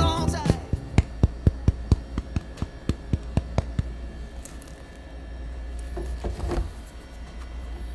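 A quick run of sharp taps or knocks, about four a second, fading out after roughly three seconds, over a low steady hum.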